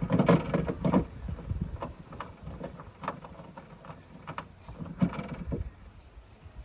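Hand-work on car boot latch parts: a busy patch of clicks and knocks, then single sharp clicks about once a second, with a small cluster near the end.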